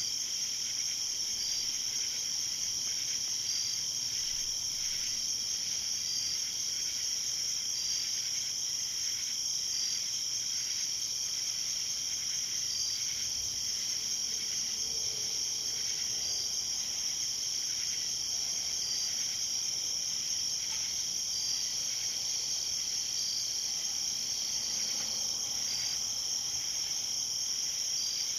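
Night-time insect chorus: a steady high-pitched trill, with a second, lower trill under it and a short chirp repeating about every second and a quarter.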